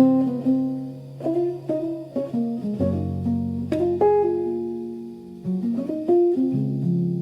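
Background music: a plucked guitar picking a slow melody over sustained low bass notes.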